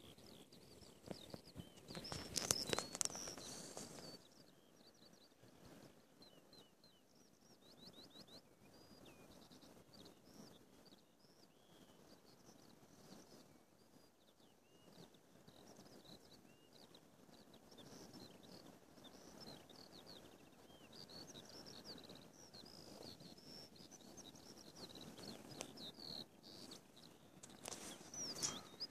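Eurasian skylark singing: a faint, unbroken stream of quick, high warbling and trilling notes. Gusts of wind rumble on the microphone about two seconds in and again near the end.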